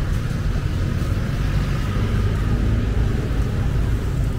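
Outdoor street ambience: a steady deep rumble with a fainter hiss above it.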